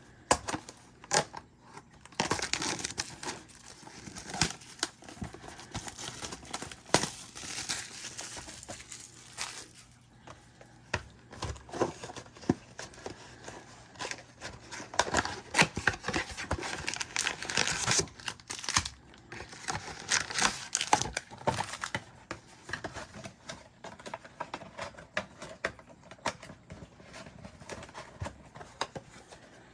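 Packaging of a trading card mega box being torn open by hand: tearing and crinkling of wrapping in several bursts, with sharp clicks from handling between them.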